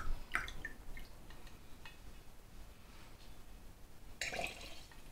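Water dripping and trickling into a glass, with a few small glass clicks. About four seconds in, a short hissing spurt as the uFlow mini keg's tap is opened and force-carbonated water runs into the glass.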